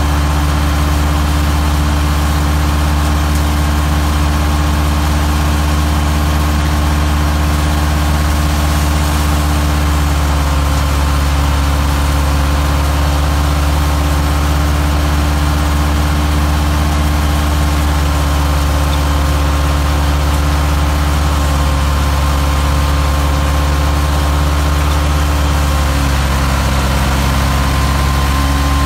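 Ford 4610 tractor's three-cylinder diesel engine running steadily, with a deep, even drone and only a slight change in tone near the end.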